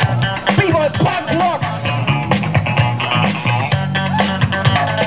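Music with a steady drum beat and a repeating bass line, with sliding notes about a second in.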